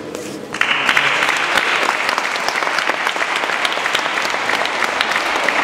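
Audience clapping, starting suddenly about half a second in and continuing steadily as a dense patter of many hands.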